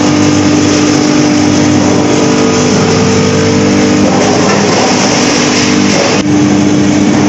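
Rotary drum dryer machine running: a loud, steady mechanical drone with a constant motor hum. The sound changes abruptly about six seconds in and then carries on.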